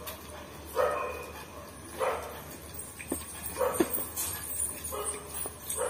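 A dog barking in short single barks, about five of them roughly a second apart. A couple of light sharp clicks sound in between.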